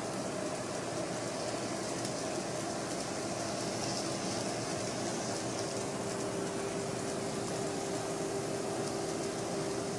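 Small electric motor of an N-scale Fleischmann model locomotive running on the track, a steady whine over an even hiss, the whine growing a little stronger about six seconds in.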